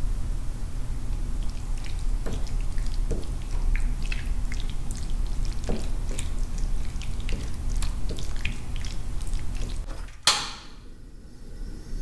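Kitchen food-preparation sounds: small scattered drips and clicks of liquid over a low steady hum. About ten seconds in there is one sudden loud burst, then a quieter stretch before the sounds resume near the end.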